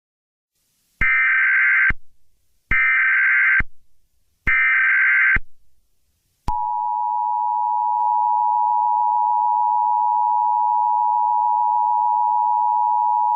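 Emergency Alert System signalling: three short bursts of warbling SAME header data tones, each trailing off in an echo, then the steady two-tone EAS attention signal, which starts about six and a half seconds in.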